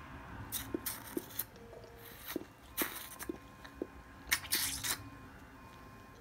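Wet licking and mouth sounds from a Rottweiler licking her newborn puppy, in a few short spells with small clicks between.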